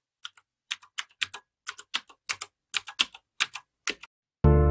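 Computer-keyboard typing sound effect: a run of sharp key clicks, about two to three a second and often in quick pairs. Near the end a loud, sustained music chord comes in.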